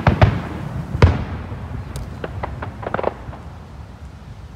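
Fireworks display: three loud shell bursts within the first second or so, then a quick run of smaller pops around two to three seconds in, dying away.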